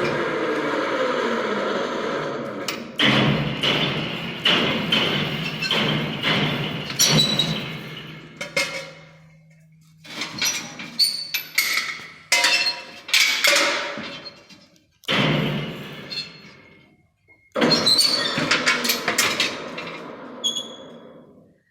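Metal knocks and clanks from hand work on a baler pickup's parts, coming in several short stretches that cut off abruptly. Some strikes ring, and a steady low hum runs under the first half.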